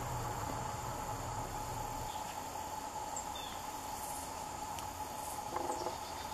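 Steady outdoor ambience of insects droning with a constant high, thin tone, over a low distant rumble that fades out about two seconds in.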